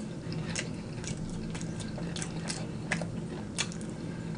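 Close-miked chewing of a mouthful of macaroni and cheese: wet smacking clicks of the mouth, irregularly about twice a second, over a low steady hum.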